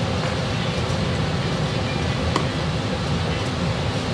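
Steady low background rumble, with one sharp click about two and a half seconds in as a stubborn old rubber foot is pried out of a wooden sewing machine case with a screwdriver and pliers.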